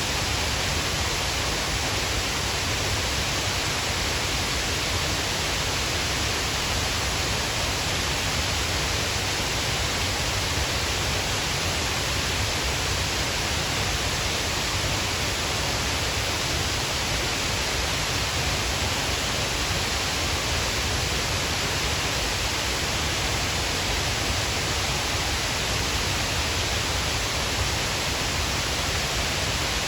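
Water of Shiraito Falls pouring steadily: an even, unbroken rush of falling water.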